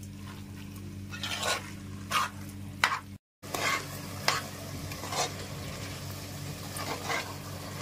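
A spatula stirring and scraping chicken against the metal base of a pressure cooker pot, in separate strokes about a second apart, over a low sizzle as the masala-coated chicken fries in its marinade.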